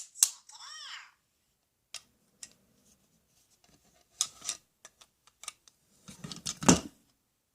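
Plastic toy tools being handled: sharp clicks and small knocks, with a brief warbling squeak just after the start and a louder clattering knock near the end.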